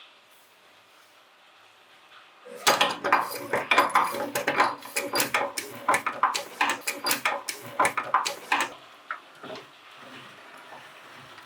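Crisp wafer ice cream cone being crushed in a meat grinder: a dense run of rapid cracking and crunching that starts about two and a half seconds in, thinning to a few scattered cracks near the end.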